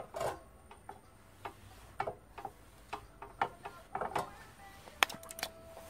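Irregular clicks and knocks of a copper pan shifting on an iron burner stand as molten tin is wiped over its inside with a cotton buffer. About five seconds in a sharper knock is followed by a short steady ringing tone.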